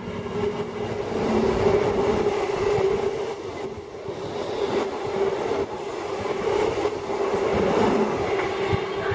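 Queensland Rail electric multiple-unit train running through the station at speed without stopping: the rumble of wheels on the rails swells in as it arrives, with a steady hum under it, and eases off near the end as the last car passes.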